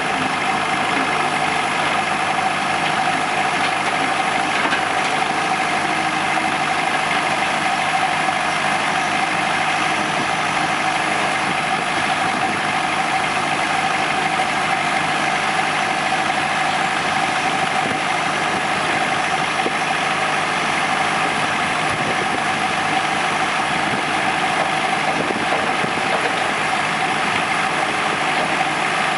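Hitachi EX60 mini excavator's diesel engine running steadily at a constant pitch as the machine digs and loads spoil into a dumper.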